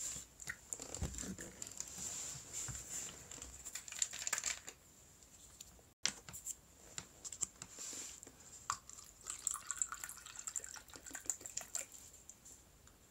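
Crinkling and rustling handling noise with many small clicks, in two spells of a few seconds each, the sound cutting out for an instant between them.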